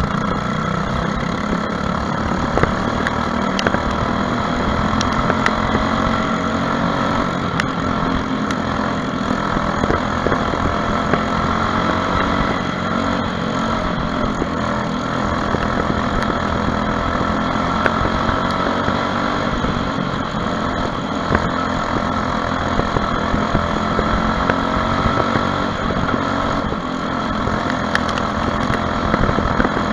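Onboard sound of a Junior Gold 206 racing kart's Briggs & Stratton LO206 single-cylinder four-stroke engine running hard around a dirt oval, its pitch rising and falling gently through the turns, with occasional sharp clicks.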